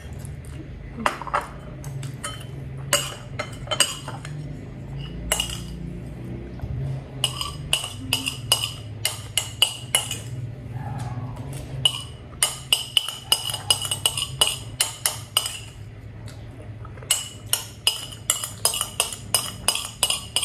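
Metal cutlery and chopsticks clinking and scraping against a ceramic bowl as the last noodles are gathered up. There are scattered sharp clinks, then quick runs of about four clinks a second in the middle and again near the end.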